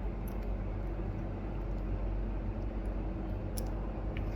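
Steady low background hum, with a few faint light clicks of small plastic keyboard-switch parts being handled.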